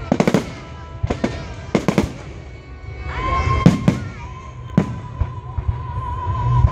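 Aerial fireworks bursting overhead: a run of sharp bangs and crackles at irregular intervals, the loudest a little past halfway through.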